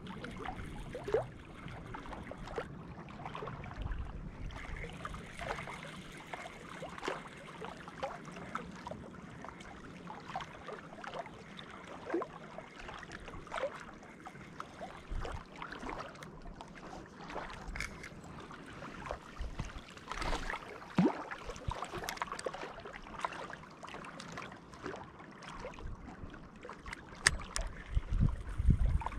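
Small waves lapping on a rocky lake shore, with scattered light clicks and ticks throughout. A few low rumbles come and go, loudest near the end.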